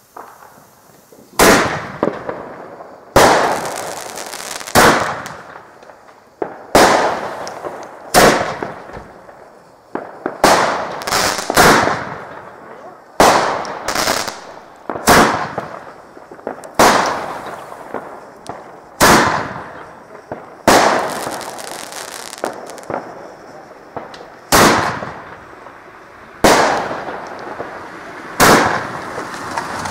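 Fireworks going off: about twenty loud bangs, roughly one every one and a half to two seconds, a few coming close together, each trailing off over about a second.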